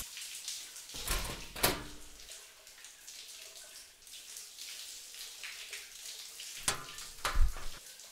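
Backpack being handled: a faint rustle and hiss, with short knocks about a second in and a few soft thumps around seven seconds in as the bag is set down on a bench.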